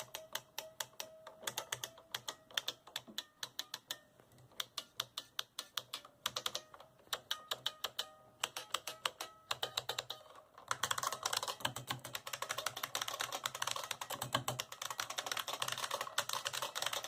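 IBM Model F AT keyboard's buckling-spring keys being typed on: separate keystrokes at first, then fast, continuous typing from about ten and a half seconds in.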